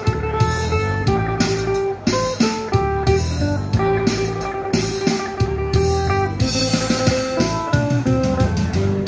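Electric phin, the Thai Isan lute, played through an amplifier: a quick plucked melody over a held, ringing note.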